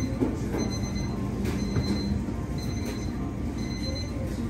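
Steady low rumble of kitchen equipment, with a short high electronic beep repeating about once a second, like an appliance timer or alert.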